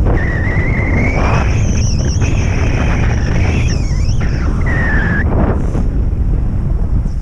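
Airflow of paragliding flight buffeting the microphone: a loud, steady rush of wind noise. A thin high whistling tone wavers above it, rising slowly over the first second or so, dipping about four seconds in and ending a little after five seconds.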